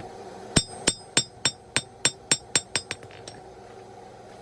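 Hand hammer striking hot 3/8-inch round stock on an anvil to flatten its tip into a leaf shape: about a dozen ringing blows, roughly four a second, stopping about three seconds in.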